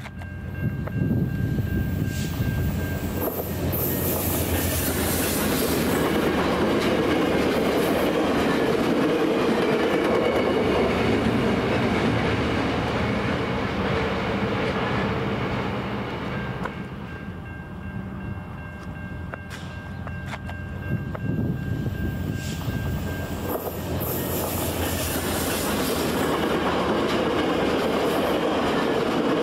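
VIA Rail passenger train passing on the main line, its steel wheels clattering over the rail joints. A thin steady whine rises above the rumble near the start and again about two-thirds of the way through.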